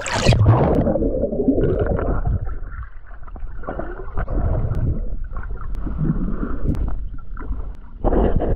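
A splash as the action camera plunges into the lake, then muffled underwater gurgling, bubbling and water churning heard through a submerged microphone, with another loud surge of sloshing near the end.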